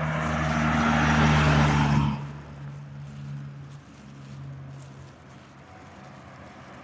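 A road vehicle passing close by, its engine and tyre noise building to a peak about a second and a half in, then dropping away and fading out.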